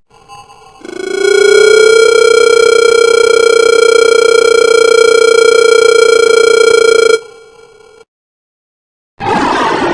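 Creature call sound effect: one long, steady, buzzy tone held for about six seconds, sliding up slightly as it starts and then cutting off abruptly. After a short silence, a loud rough growl begins near the end.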